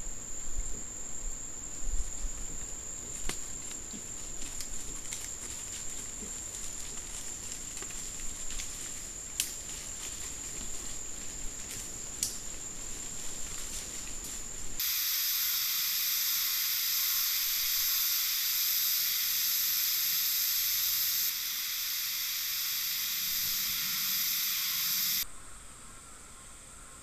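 An insect's steady high trill in a night forest, with scattered rustles and clicks of wild boar moving over leaf litter and mud. About halfway through, a much louder steady hiss starts, runs for about ten seconds and cuts off suddenly, leaving a quieter background.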